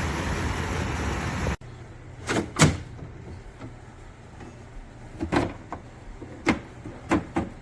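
COSTWAY 14000 BTU portable air conditioner running in fan-only fashion, a steady rush of air that cuts off abruptly. The owner takes this as a sign the compressor may not be working. After the cut, about six sharp knocks or clicks sound over a low hum.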